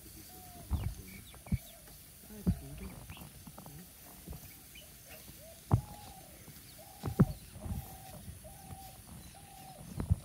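A run of short, arching animal calls, about two a second, starts in the second half. Several sharp knocks come before it and among it.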